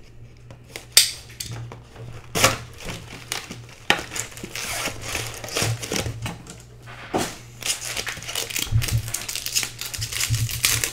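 Trading-card hobby box being opened: its plastic wrap slit with a box cutter, the cardboard lid pulled open, then foil card packs crinkling in the hands, a string of sharp crackles and rustles.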